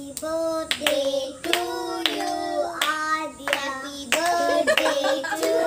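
Girls and a woman singing a song together, holding sung notes that step from one pitch to the next, while clapping their hands along with it.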